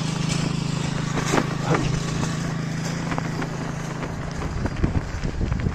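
Touring bicycle rolling over a rough, rutted dirt track: a steady low hum from the tyres with scattered knocks and rattles from bumps and gravel. The hum fades about four and a half seconds in.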